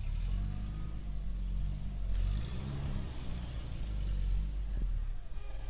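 Opel Frontera A Sport's engine running under load as the 4x4 drives slowly over rough off-road ground, the revs rising and falling a couple of times around the middle.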